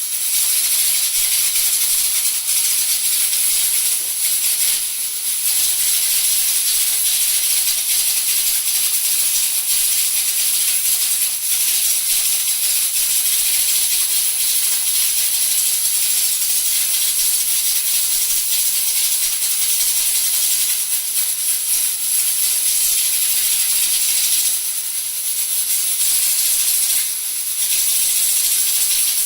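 Two Prestige pressure cookers venting steam through their whistle weights: a steady, loud, rattling hiss with a thin high tone in it, dipping briefly three times.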